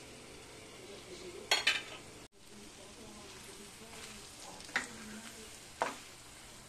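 A spatula stirs vegetables into frying masala in a steel kadhai, over a faint steady sizzle. Three sharp strokes of the spatula against the pan stand out, the loudest about one and a half seconds in.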